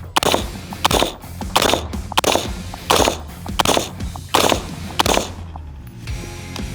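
A 5.56 rifle fired in a steady string of about eight shots, roughly one every two-thirds of a second, stopping about five seconds in. Background music runs underneath and carries on alone after the last shot.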